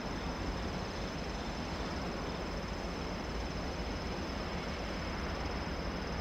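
JR Freight DD51 twin-engine diesel-hydraulic locomotive running steadily as it approaches, hauling container wagons: a low, even engine drone.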